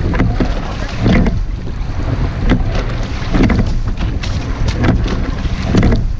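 Rowing shell under way: the oars clunk in their oarlocks and splash through the water in a steady stroke rhythm, over a constant rumble of wind on the microphone.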